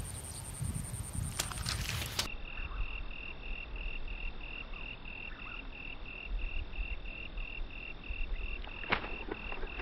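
Outdoor animal chirping: a high, fast-pulsing insect trill early on, then after a cut a steady chirping call repeating about three times a second over low wind rumble. A few sharp clicks come near the end.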